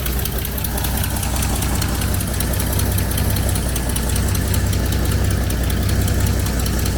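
Carbureted six-cylinder engine of a 1985 Ford Bronco idling steadily. Its idle is set too low after vacuum-leak repairs, so that it barely idles, and is about to be reset.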